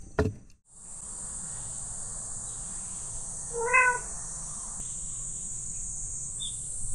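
A calico cat gives one short meow, rising then falling in pitch, about halfway through, over a steady high-pitched hiss.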